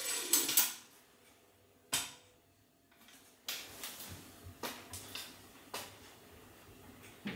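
Folding step ladder being set down and opened with a burst of clanks, a sharp knock about two seconds in, then a run of lighter knocks and creaks as someone steps up onto it.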